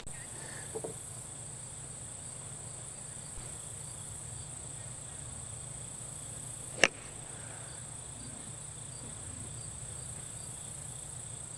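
Steady high-pitched chirring of crickets, with one sharp click about two-thirds of the way through: a putter striking a golf ball.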